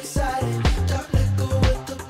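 Upbeat background music with a steady beat, a deep thump about twice a second.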